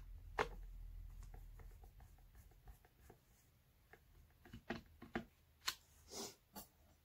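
Faint scattered clicks and a short scrape: a plastic speaker cabinet and its screws being handled and unscrewed by hand during a teardown.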